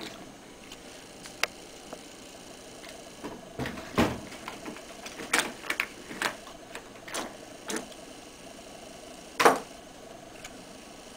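Scattered clicks and knocks of a car battery and its clamp-on EasyClick terminal connectors being handled, with a duller thump about four seconds in and the loudest knock near the end.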